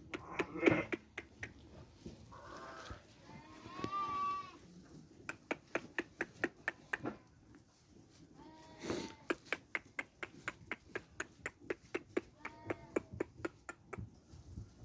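Sheep bleating, about five separate calls, over a steady run of sharp clicks at roughly three or four a second.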